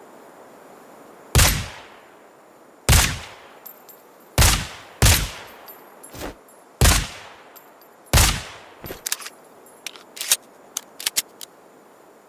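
Suppressed Desert Eagle pistol firing six loud single shots, mostly about a second and a half apart, with a quieter report between the fourth and fifth. A run of lighter, quicker sharp clicks follows near the end.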